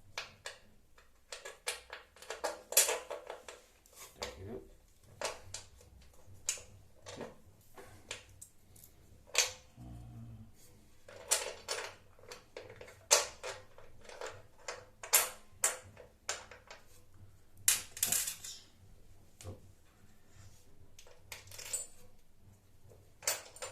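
Small metal parts clinking and clattering as they are handled and fitted, in irregular sharp clicks and knocks, some in quick clusters.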